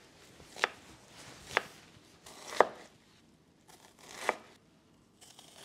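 Chef's knife slicing through a white onion and striking a wooden cutting board: four separate, unhurried cuts about a second apart, each a short swish ending in a sharp tap, as the onion is diced.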